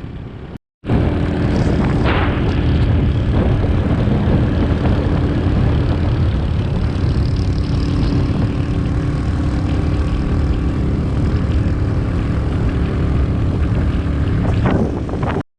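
Small motorbike engine running steadily under way, its drone even and unbroken. The sound cuts out for a moment about half a second in.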